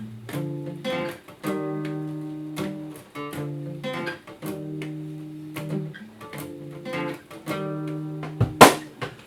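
Acoustic guitar playing an instrumental passage alone, ringing chords struck again about every half second to a second, with a loud sharp hit near the end.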